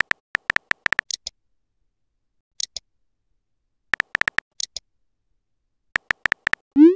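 Phone keyboard tap clicks in three quick runs, with a few higher chirps among them. Just before the end comes a short rising 'bloop' chat tone.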